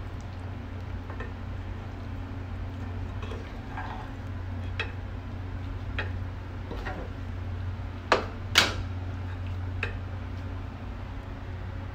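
Wooden spatula knocking and scraping against a stainless steel pot as chicken feet in thick sauce are stirred: scattered light clicks, with two louder knocks a half second apart about eight seconds in, over a steady low hum.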